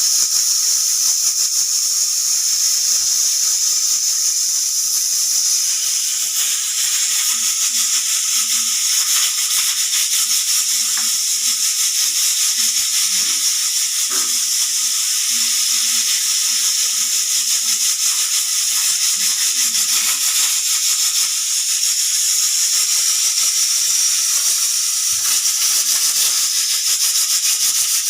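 Pressure cooker whistling: steam jets out steadily past the rattling weight valve, a loud, continuous hiss with a fast rattle in it. It is the sign that the cooker has reached full pressure.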